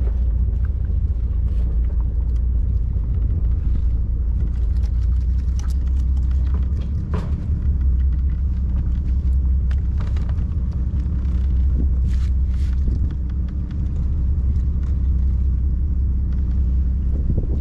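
A boat's engine running steadily with a low, even drone, with a few faint clicks over it.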